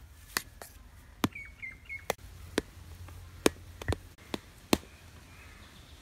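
A spoon clinking against the side of a stainless steel pot while flour and liquid are stirred for bread dough: sharp clinks at uneven intervals, about nine in all. A bird chirps three times quickly about a second in.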